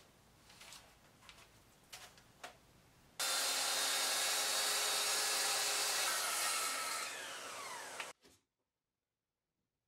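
A few light knocks as a guide rail is set on plywood, then a Bosch track saw with dust extraction running steadily for about five seconds. Near the end it gets quieter, with tones sliding down, and then cuts off suddenly.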